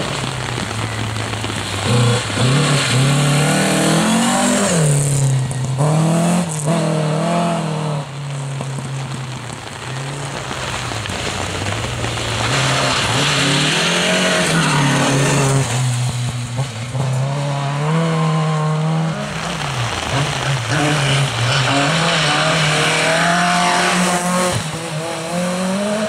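Rally car engines revving hard on a wet gravel stage, the pitch climbing and then dropping with each gear change, again and again, over the hiss of tyres on the wet road.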